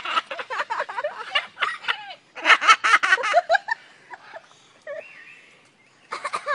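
Cockatoo mimicking human laughter in rapid ha-ha-ha bursts, the strongest burst about two and a half seconds in, with a short whistled note near the five-second mark.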